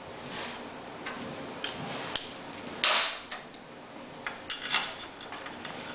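Scattered metallic clicks and knocks of hand tools and bolts being handled while the generator's stator and rotor are fitted, with a louder short clatter about three seconds in.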